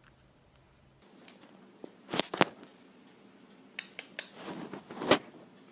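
Several sharp clicks and knocks, a close pair and then a few more spread out, as a small dog tumbles about in a mesh pop-up play tunnel on a rug.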